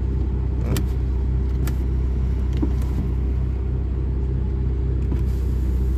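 Volkswagen Jetta Mk6.5 idling with a steady low hum. Three short clicks come about a second apart in the first few seconds.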